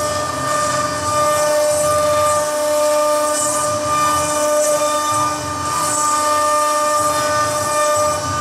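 CNC stone router's spindle running at speed with its bit cutting into a marble slab: a steady high whine of several fixed pitches over a constant hiss.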